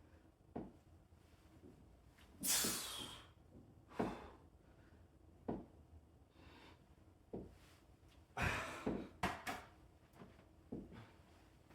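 A person breathing hard from pull-ups, with sharp exhales and gasps at irregular intervals of a second or two, the longest about two and a half seconds in and a quick cluster near the end.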